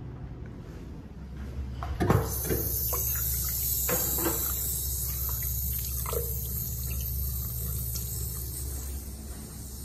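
A push-button metering faucet is pressed with a click, then water runs from it in a steady stream into a stainless steel sink, with a few small clicks and splashes along the way.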